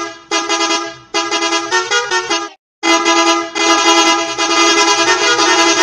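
Bus horn honking in a string of blasts at one steady pitch: a few short honks, one whose pitch wobbles near its end, then after a brief gap a long held blast lasting about three seconds. These are edited variations of the same horn sound.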